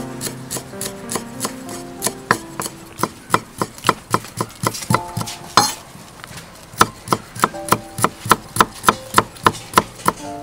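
A cleaver chopping kaffir lime leaves and then strips of root on a wooden chopping board: quick, even knocks about three a second, with a short pause a little past halfway.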